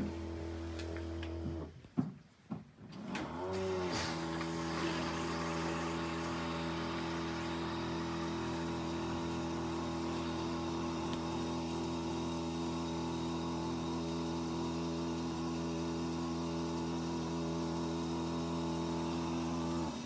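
Fisher & Paykel DD60DCX7 DishDrawer's wash pump motor humming steadily during the pre-wash rinse. About two seconds in it stops with a sharp click, then spins back up with a brief whine that bends in pitch. It runs steadily again until it cuts off suddenly at the end.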